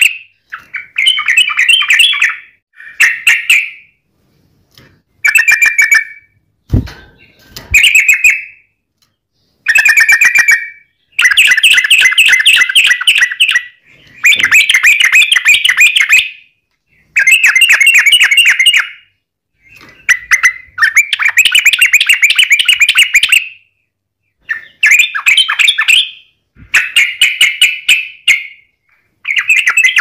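Yellow-vented bulbul (trucukan) singing in repeated bursts of rapid, chattering trills, each burst one to three seconds long with short pauses between.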